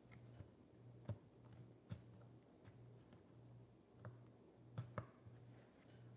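Cat purring faintly in a low, pulsing rhythm that swells and drops about twice a second as it breathes in and out. Several sharp soft clicks are scattered through it, two close together near the end.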